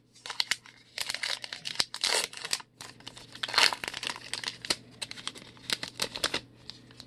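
Wrapper of a 2020 Topps Gypsy Queen baseball card pack being torn open and crinkled by hand: a run of rustling crackles with a few louder tearing bursts, dying away shortly before the end.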